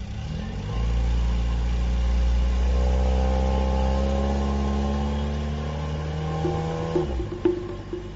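Car engine pulling away and driving steadily, its note rising a little as it speeds up, then cutting off abruptly about seven seconds in.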